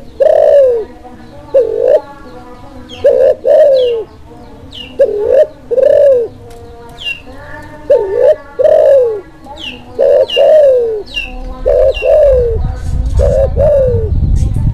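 Spotted dove of the Kelantan (klantan) strain, in breeding condition, cooing over and over: phrases of two or three low, arching coos about every second or so. Thin, falling high chirps sound between the coos, and a low rumbling noise builds under the calls in the last few seconds.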